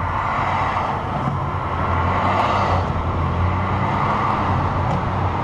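Steady engine hum and road noise of a car driving, picked up by a dashcam inside the car.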